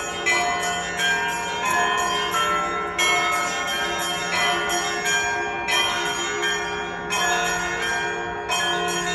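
Russian Orthodox monastery bells being rung: several smaller bells struck in a quick repeating pattern, about two strikes a second, over the steady hum of a larger bell.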